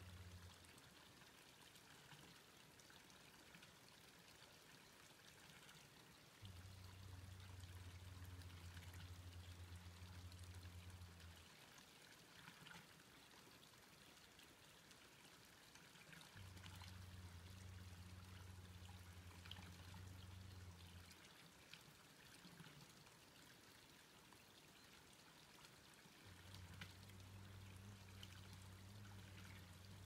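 Near silence: faint outdoor hiss with light ticks. A low steady hum comes and goes about every ten seconds, lasting roughly five seconds each time.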